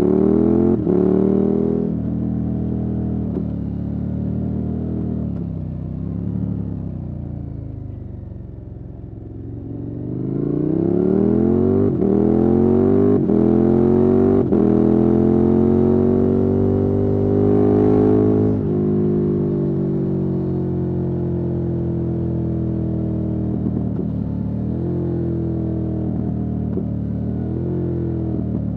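KTM 1290 Super Adventure S's V-twin engine through an aftermarket Wings exhaust, heard from the rider's seat. The revs wind down off the throttle, then climb in one long pull from about ten seconds in. They drop sharply as the throttle closes a little past halfway, then the engine runs steadily at lower revs with a few short blips near the end.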